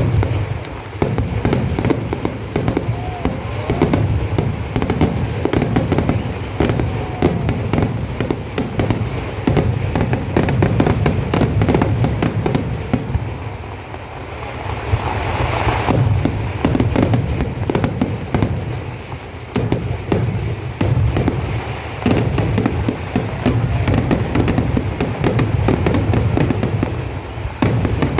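Kerala temple-festival fireworks (vedikettu): a dense, unbroken barrage of bangs and booms going off many times a second. It eases briefly about halfway through, then builds back up.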